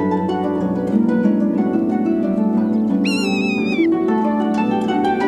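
Harp-led background music with plucked strings. About three seconds in, a single high mewing call cuts through it, held for about a second and dropping at the end: the kitten-like cry of a rough-legged buzzard.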